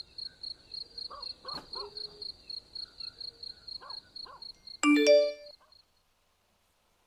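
Cricket chirping in an even, high-pitched pulse of about four chirps a second, with a few faint lower calls beneath it. About five seconds in, a short, loud musical chime of several tones sounds, and the chirping ends with it.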